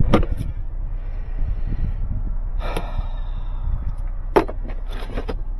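Steady low rumble of a vehicle on the move, heard from inside the cab, with a few sharp knocks or rattles, the loudest about four seconds in.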